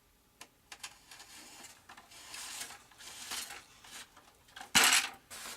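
Hands handling a pushrod wire and plastic control horn as it is slid into its tube in the model plane's airframe: irregular rubbing and small clicks, with one louder, short scrape near the end.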